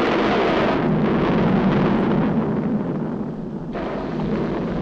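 Sound effect of a volcano erupting in a 1940s animated cartoon soundtrack: a loud, continuous rumbling noise that sets in suddenly and keeps going.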